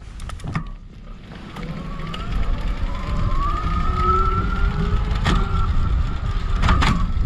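Mid-drive electric bike motor whining under full pedal assist as the bike accelerates, its pitch rising and then holding steady, over wind noise on the microphone that grows with speed. A few sharp clicks come near the start and twice more later.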